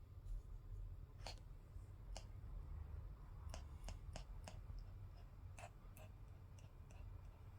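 About ten faint, irregularly spaced clicks and ticks over a low steady background rumble.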